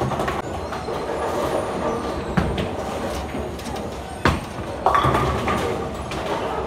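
Bowling alley noise: the steady rumble of balls rolling down the wooden lanes, with sharp knocks of balls and pins. The loudest knock comes about four seconds in, as a bowled ball lands on the lane.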